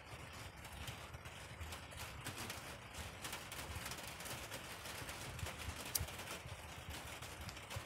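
Rain falling: a steady hiss with irregular taps of drops landing close by, and one sharper click about six seconds in.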